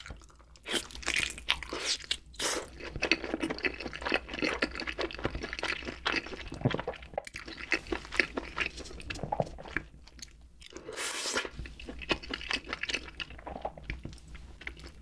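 Close-miked mukbang eating sounds: a person biting and chewing crunchy food, with irregular loud crunches and wet chewing, and a short noisy burst about eleven seconds in.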